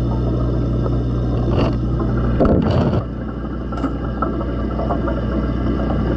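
Steady low hum of an aquarium pump, heard from inside a waterproof camera housing submerged in the tank. About two and a half seconds in, a brief burst of knocking and scraping as the housing is moved; the hum then carries on a little quieter.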